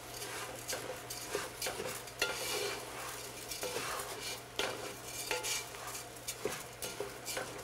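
Wooden spoon stirring dry long-grain rice around a large pot, in irregular scraping and knocking strokes against the pot, with a light sizzle as the rice toasts in the hot oil with onions and peppers before any liquid is added.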